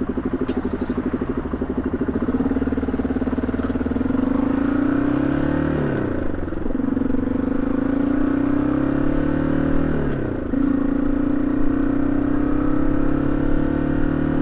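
Yamaha XT225 Serow's single-cylinder four-stroke engine pulling through the gears under the rider. Its pitch climbs, then drops sharply at upshifts about six and ten seconds in, and climbs again.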